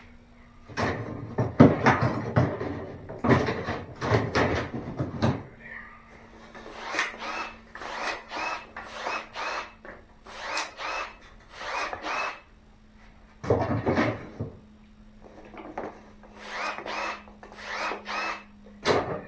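Milwaukee M12 cordless pruning shears cutting 5 mm poplar plywood scrap, in a string of short, sharp bursts as the powered blades close and crunch through the wood. A few heavier, fuller cuts come in the first seconds and again around the middle.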